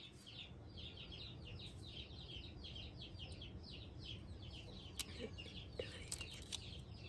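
Faint, rapid chirping of birds: short high calls that slide downward, several a second and without a break. A few sharp clicks come in about five and six seconds in.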